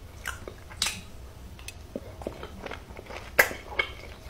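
A person chewing loudly close to the microphone, mukbang-style: a few sharp wet mouth clicks and smacks, the loudest pair near the end, over a low steady hum.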